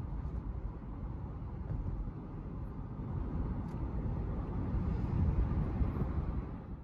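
Car driving: a steady low rumble of engine and road noise that swells a little about five seconds in.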